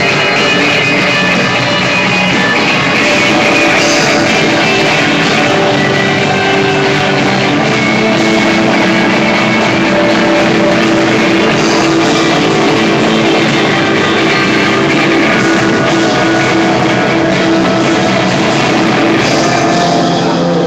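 Live rock band playing loudly and without a break: electric guitars over a drum kit, recorded on a phone microphone.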